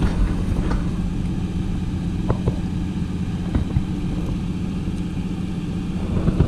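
A large excavator's engine running steadily, with a few short knocks.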